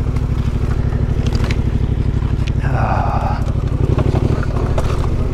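Yamaha Ténéré 700 parallel-twin engine running steadily at low revs while the bike crawls along a rough track. About three seconds in there is a brief scrape of brush against the bike, with a few light clicks here and there.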